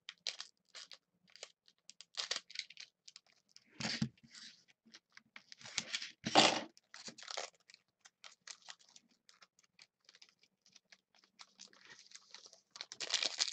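Foil wrapper of a trading-card pack crinkling and tearing open, then cards sliding and clicking against each other as they are handled. The sound is a run of short crackles, with louder ones about four and six seconds in and a dense stretch of crinkling near the end.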